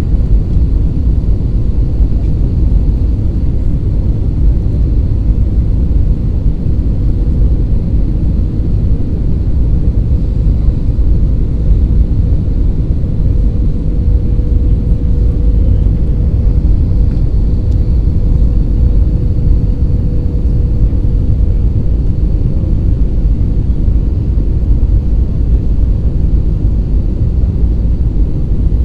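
Cabin noise inside an Airbus A320 on its landing approach: the steady low rumble of the engines and rushing air, with a faint steady hum running through it.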